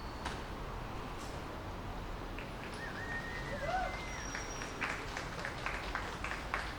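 Outdoor ambience with a steady hiss, a brief wavering whistled call in the middle, then a run of regular clicks or taps, about three a second, starting about five seconds in.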